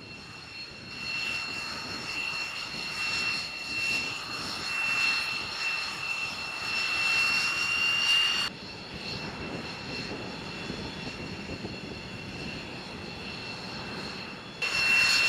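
X-47B's Pratt & Whitney F100 turbofan jet engine running on a carrier deck: a steady high whine over a rushing hiss. About eight and a half seconds in the whine stops abruptly, leaving a quieter rushing noise, and it comes back near the end.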